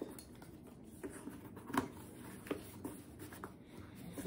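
Quiet handling noises of a handbag being turned over and moved: soft rustling with a few light clicks, the sharpest just before two seconds in.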